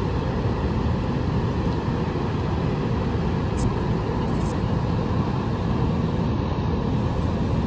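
Steady rushing roar of the American and Bridal Veil Falls at Niagara, heard across the gorge.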